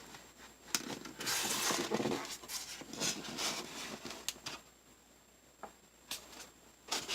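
Handling noise of a small plastic 1984 Nikko Big Homer RC buggy being moved and turned in the hands: scattered clicks and taps with a few short rustles, dying away about five seconds in before a couple more taps near the end.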